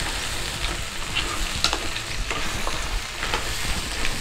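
Mud crabs and onions sizzling in hot oil in a pan, stirred with a wooden spatula: a steady sizzle with scattered light clicks of spatula and shells against the pan.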